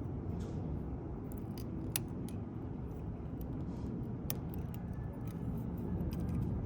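Lishi pick working the pins of a Schlage door lock: scattered small metallic clicks and ticks, two sharper ones about two and four seconds in, over a steady low rumble.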